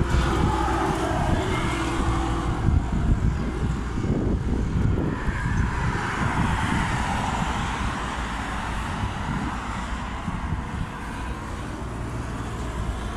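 Strong wind buffeting the phone's microphone in an irregular low rumble, over road traffic passing nearby; a vehicle's rush swells and fades about five to eight seconds in.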